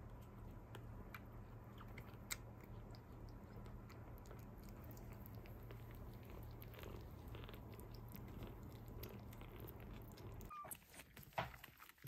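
Bottle-fed baby kitten suckling: faint wet sucking and smacking clicks over a steady low hum. The hum drops out about ten and a half seconds in, and a few louder clicks follow.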